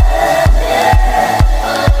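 Electronic dance music with a steady kick drum, about two beats a second, under a held synth chord.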